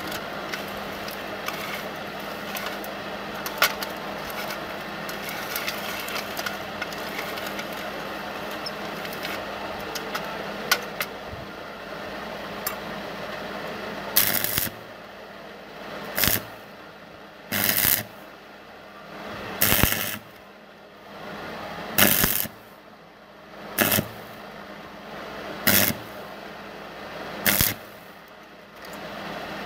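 A steady machine hum with a few clicks, then from about halfway a series of eight short bursts of electric arc welding, about one every two seconds: tack welds fixing the steel rod spokes of a drill-stand feed handle onto their hub.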